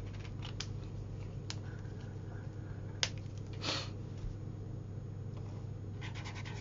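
A Jane Davenport Mermaid marker being handled: a few light clicks, a sharp click about three seconds in and a short rustle, then near the end its nib starts scratching across sketchbook paper. A steady low hum runs underneath.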